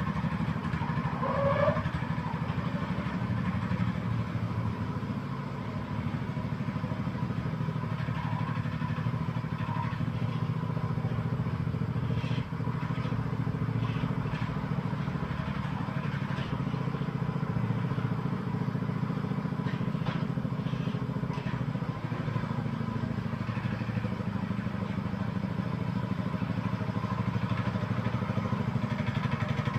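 Small engine of a walk-behind rotary tiller running steadily under load as it turns soil, with a few faint clicks in the middle stretch. It grows a little louder near the end.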